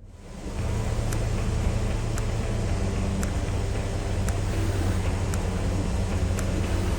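Steady vehicle noise with a low hum that comes up within about half a second at the start, with faint sharp ticks about once a second.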